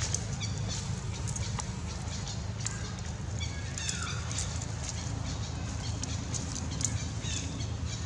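Scattered short, high-pitched chirping calls, several of them falling in pitch, over a steady low hum.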